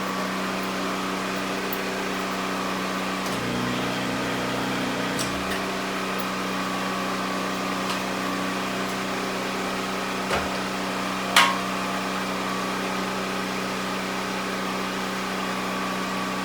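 A steady machine hum runs throughout, with a few light metal knocks and one sharp metallic clank about eleven seconds in. The knocks and clank come from fitting a drop center clamp onto a tire changer.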